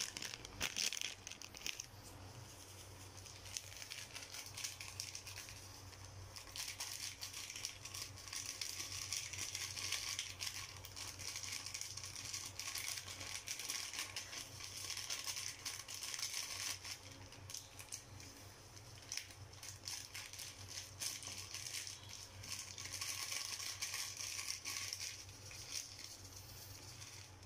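Plastic sachet of Knorr Sinigang sa Sampalok powdered tamarind soup mix crinkling and rattling as it is shaken and squeezed to empty it into a pot, with irregular crackly clicks over a steady faint hiss.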